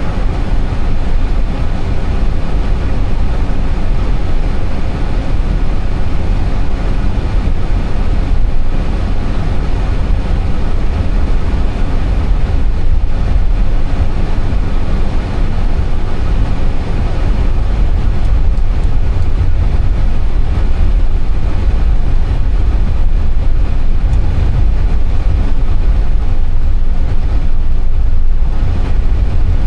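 Steady cockpit noise of an Airbus A320: a loud, unbroken low hum of engines and air, with no strokes or changes.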